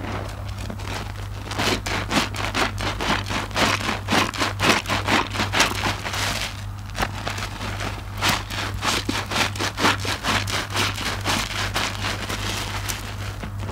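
Soapy IKEA loofah squeezed and kneaded by hand in sudsy water: quick, repeated wet squelches with crackling, popping foam, easing off briefly about halfway through.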